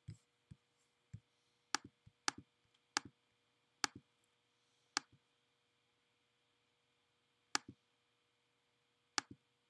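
Computer mouse clicking about ten times at uneven intervals, each a sharp click, several with a softer second click just after. It is working a PDF reader's previous-page button to page back through a document.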